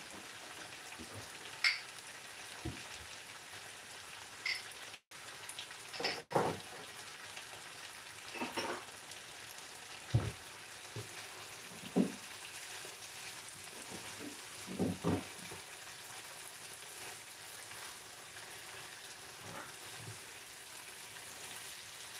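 Ackee and saltfish finishing in a frying pan: a steady sizzle, with scattered clinks and scrapes as a utensil turns the food in the pan.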